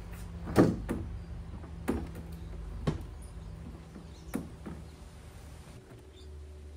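About five knocks and clunks as a hardboard stand-up paddleboard is handled in a scooter's metal side surf rack, the first and loudest about half a second in. The board moves around in the rack because the 6-inch SUP gap is too wide for its thin front end.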